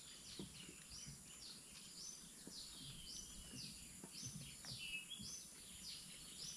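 Faint bird calling: a steady series of short, high notes, each sliding downward, about two a second. Soft, faint knocks underneath.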